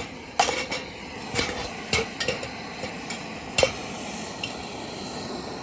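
Metal cup clinking and scraping on a metal pot-support grate atop a lit isobutane canister backpacking stove: a handful of sharp knocks at irregular moments, the loudest about three and a half seconds in, over the stove's steady hiss of burning gas.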